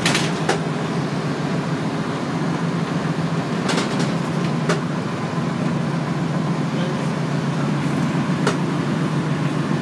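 Steady engine and road noise inside a moving van's cabin, with a low hum, and a few sharp clicks or rattles near the start, around four seconds in and again near the end.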